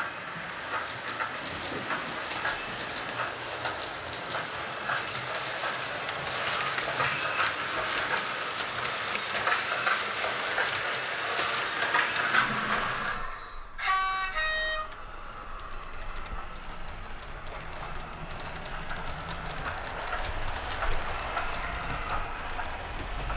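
00-gauge model trains running on the track, the wheels clicking and rattling over the rails, with the locomotives' sound chips playing. About fourteen seconds in comes a short run of high tones, like a loco's sound-chip horn, followed by a quieter steady running sound with a low rumble building near the end as coaches pass close by.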